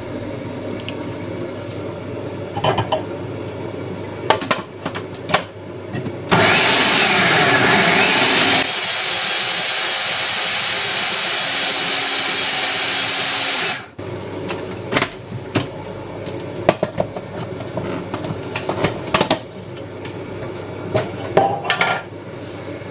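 Decen food processor blending roasted courgette pesto with mixed seeds. It starts about six seconds in, is loudest for the first couple of seconds, then runs a little lower and steadier for about five more, and cuts off suddenly. Before and after the run there are scattered clicks and knocks of the lid and bowl being handled.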